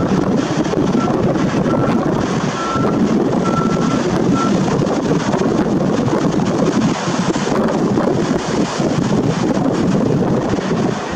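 Wind buffeting the camera's built-in microphone in a steady rushing noise, with sea surf beneath it.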